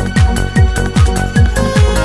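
Electronic dance music with a steady kick drum on every beat, a little over two beats a second.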